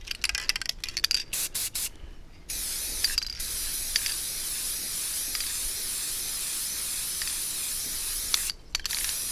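Aerosol spray paint can (Krylon Fusion) spraying: a few short rattling clicks, then a steady hiss of paint spraying from about two and a half seconds in, lasting about six seconds and cutting off near the end.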